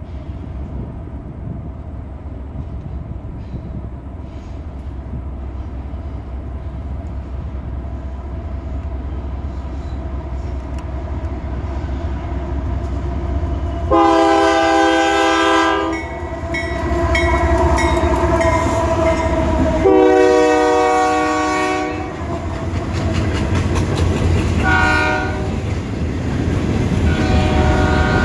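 Diesel freight train with Union Pacific locomotives approaching and passing: a low engine rumble builds steadily, then the locomotive air horn sounds two long blasts, a short one and a final long one. The freight cars are rolling past near the end.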